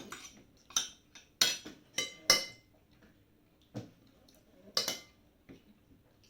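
Spoon and fork clinking against a plate while eating, several sharp clinks with a brief ring, coming more sparsely in the second half.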